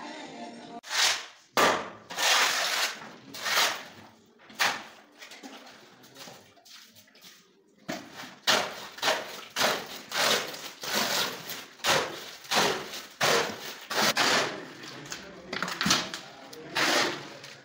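A shovel scraping and turning a wet concrete mix on a cement floor: repeated wet scraping strokes, a few at first, then after a quieter pause about two a second.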